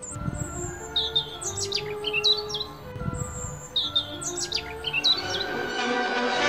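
Bird chirps and short whistled calls in two bouts of song over soft background music, with the music swelling near the end.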